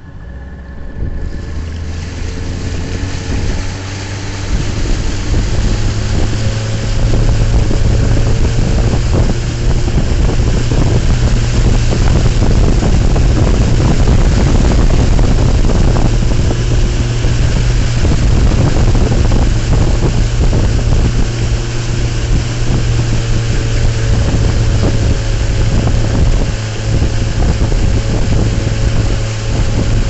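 Small boat's outboard motor running under way, a steady low drone with rushing water and wind on the microphone. It grows louder over the first several seconds, then holds steady.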